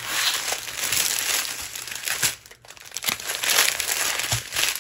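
Clear plastic bags of diamond-painting drills crinkling as they are handled, in two stretches with a short lull about two and a half seconds in.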